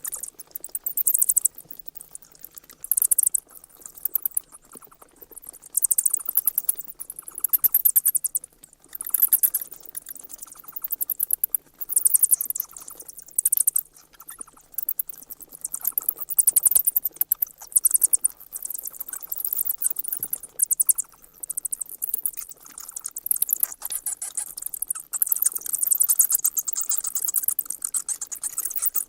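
Bats squeaking: rapid, high-pitched chirps in repeated bursts of about a second, separated by short pauses.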